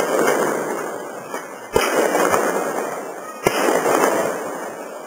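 Fireworks going off: two sharp bangs, about a second and three quarters in and again at about three and a half seconds. Each is followed by a loud noisy crackle that fades over a second or more.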